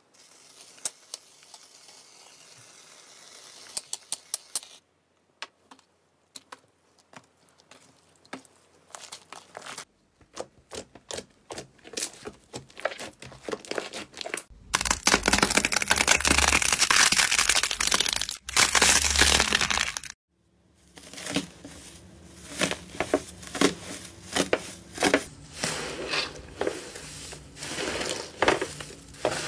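A faint hiss of foam sprayed from an aerosol can onto clear slime, then slime squeezed and kneaded by hand: scattered sticky clicks and pops, a loud stretch of dense crackling in the middle, and wet popping about once or twice a second near the end.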